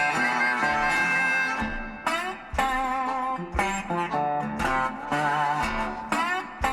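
Background music: a guitar playing a blues-style tune, with notes sliding up in pitch a couple of times.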